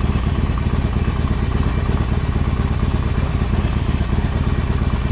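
Motorcycle engine idling steadily, a low, evenly pulsing running sound that holds the same level throughout.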